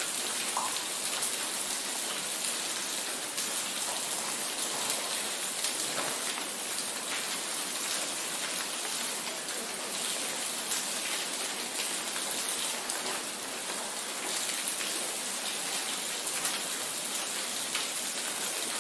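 Steady rain falling: an even hiss with faint, scattered drop ticks in it.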